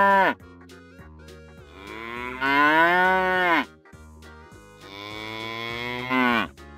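Cow mooing: the end of one moo at the start, then two long moos, each sliding down in pitch at the end, over light background music.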